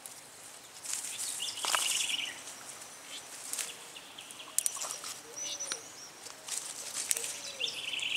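Tomato plants' leaves and stems rustling and crackling as ripe cherry tomatoes are picked by hand. Birds are calling over it: a short buzzy trill twice, and a low, arched call twice in the second half.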